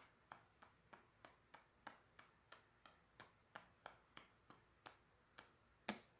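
Faint, steady ticking: short clicks about three a second, with a slightly stronger click near the end.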